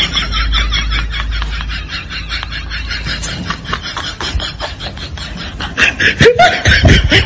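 Laughter: a fast run of short, even 'ha-ha' pulses, quieter through the middle and louder again near the end.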